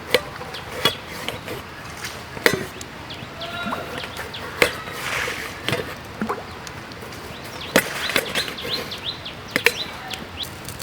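Irregular chopping knocks, about one every one to two seconds. Small birds chirp between the strokes.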